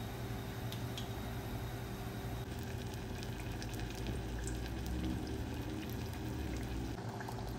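Spring rolls deep-frying in hot oil, a steady sizzle with a few scattered crackles.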